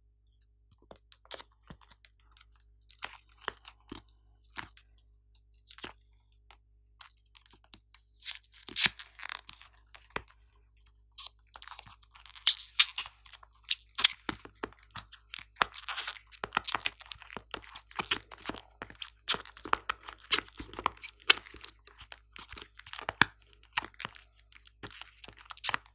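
Crisp, irregular crackling and crunching as soft purple pieces are peeled and pulled out of a plastic makeup palette's compartments and crumpled in the fingers. Scattered at first, it grows into dense runs of crackles about a third of the way in.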